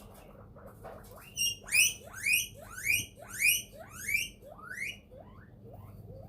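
Guinea pig chirping: a run of about a dozen bird-like rising notes, roughly two a second, growing louder and then fading away near the end. The owner takes the chirping as a sign the guinea pig is scared of something.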